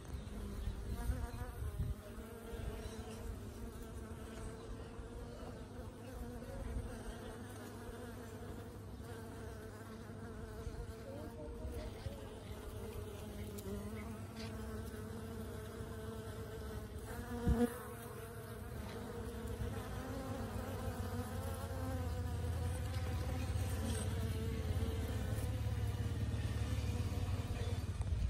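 Several honeybees buzzing as they forage on blossoms, their wingbeat hums wavering in pitch as they come and go, with a brief louder buzz a little past halfway.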